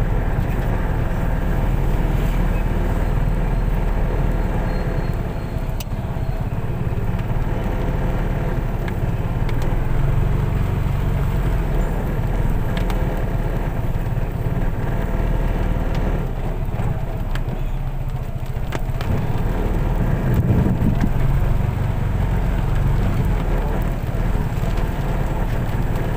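Car running with steady engine and road noise, a continuous low rumble with no sharp events.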